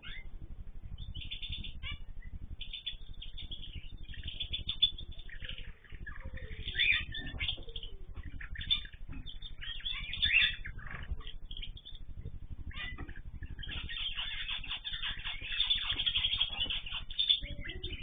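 Mixed aviary cage birds (cockatiels, canaries and zebra finches) chirping and calling in short, overlapping calls. The calling is busiest in the last few seconds, over a low background hum.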